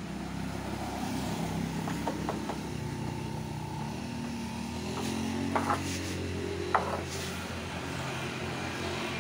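A motor vehicle engine running steadily, with a few sharp clicks and knocks as a scooter tire is worked onto its rim by hand; the loudest knocks come about five and a half and seven seconds in.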